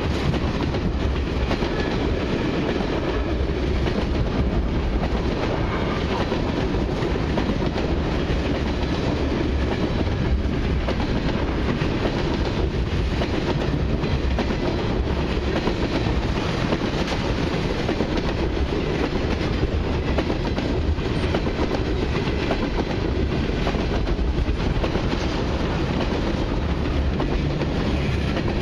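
Long freight train of loaded tank cars rolling past at close range: the steady, unbroken noise of steel wheels running on the rails, heaviest in the low end.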